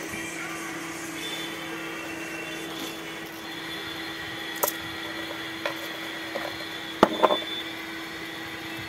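Steady background hum with a few light clicks and taps from handling the loudspeaker's parts, the loudest pair about seven seconds in.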